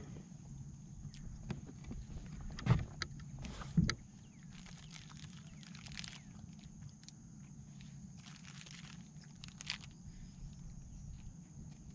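Fishing reel cranked in short spells while a topwater lure is worked from the bow of a skiff. Two sharp knocks on the boat deck come about three and four seconds in. A steady low hum runs underneath.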